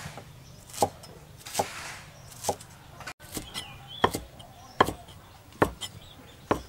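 A rectangular cleaver chopping through chives onto a thick round wooden chopping board: about seven sharp chops, roughly one a second.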